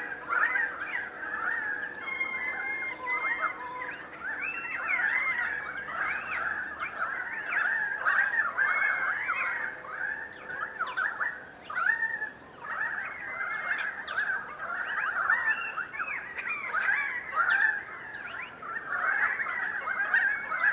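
A large flock of currawongs calling over one another: a continuous chorus of many overlapping calls that glide up and down in pitch.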